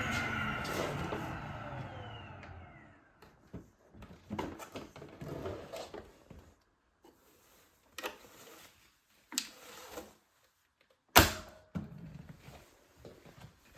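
Bagless vacuum cleaner switched off, its motor whine falling in pitch and fading over about three seconds. Then scattered clicks and knocks follow, with one sharp knock about eleven seconds in.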